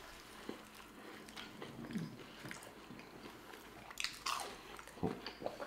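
Mouth sounds of people biting and chewing cheeseburgers and fries, quiet, with a few louder bites about four and five seconds in.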